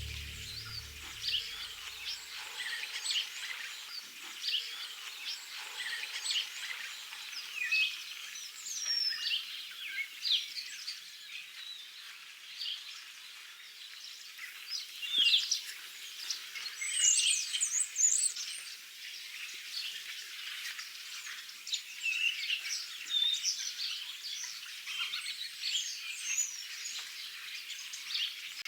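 Several small songbirds chirping and singing at once, quick high twitters and whistles overlapping one another, over a faint steady background hiss.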